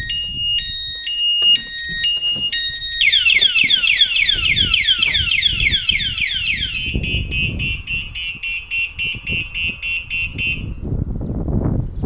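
Aftermarket motorcycle alarm siren under the seat of a Suzuki Bandit 600 going off, set off by someone sitting on the bike. It sounds a two-tone alternating warble, switches about three seconds in to fast falling sweeps, about four a second, then to a rapid pulsing tone, and stops about eleven seconds in.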